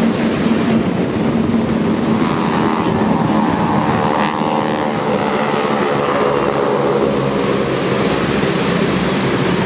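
T-6 Texan radial-engine propeller aircraft flying past, passing closest about four seconds in, over steady wind and surf noise.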